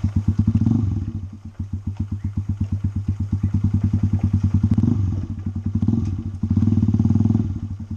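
Motorcycle engine running at low revs as the bike is ridden slowly, with an even putt of exhaust pulses. It dips briefly about a second and a half in, then swells louder a few times, longest near the end.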